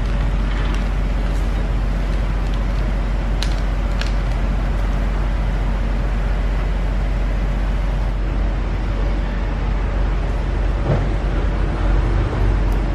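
Steady drone of workshop machinery, a low hum under a broad hiss, with a few brief clicks as brake-line parts and their plastic bag are handled.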